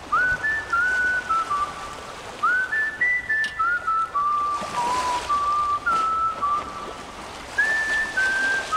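A person whistling a slow tune: a string of clear single notes, each held briefly, some entered with an upward scoop.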